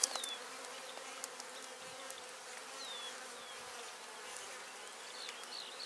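Honeybees humming steadily from a frame crowded with bees lifted out of the hive. A single sharp click comes right at the start.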